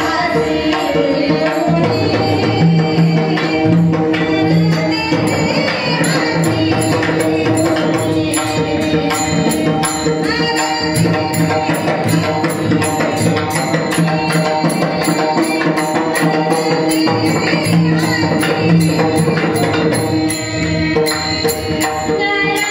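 Kirtan devotional music: a voice singing a melodic line over tabla drumming, steady held tones and an evenly spaced high beat.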